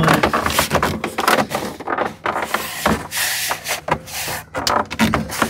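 A thin, light plastic dash cap being pushed and slid by hand down over a cracked truck dashboard: a run of short knocks and plastic rubbing on plastic, with a longer scrape about halfway through.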